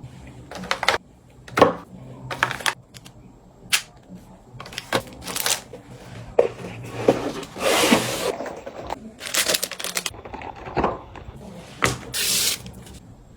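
Irregular sharp clicks and knocks mixed with short rustling or scraping bursts at close range; no ringtone melody is heard.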